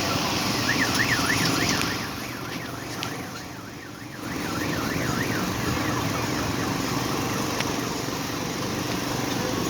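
An electronic siren-like tone warbling quickly up and down, about four swings a second, for several seconds over a busy outdoor crowd din.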